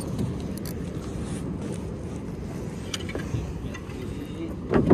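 Steady low rush of wind and choppy water around a small open boat, with a few faint ticks and one brief louder sound near the end.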